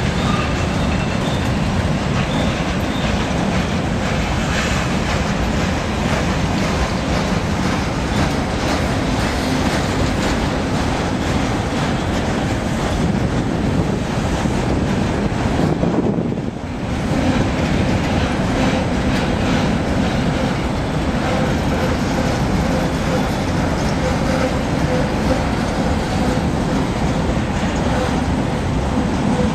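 Freight train cars rolling steadily past: a continuous rumble of steel wheels on rail with clickety-clack over the rail joints, and at times a faint wheel squeal. The sound drops briefly about halfway through, then returns.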